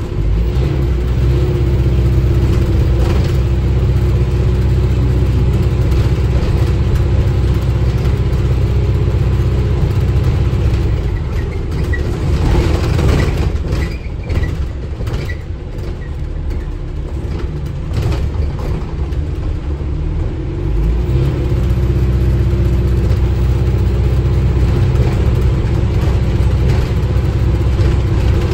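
Cabin sound of an Alexander Dennis Enviro400H MMC hybrid double-decker bus under way: a loud, steady low drone from the drivetrain. It eases off for several seconds from about the middle, with some rattling and a few faint high pips, then builds back up.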